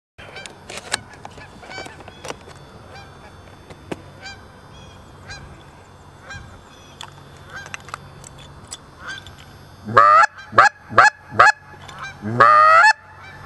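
Two Canada geese honking as they come over: faint, scattered honks at first, then four loud honks in quick succession about ten seconds in and a longer drawn-out honk near the end.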